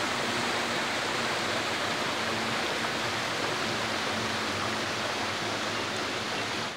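Small mountain stream running and splashing over mossy boulders, a steady rushing of water.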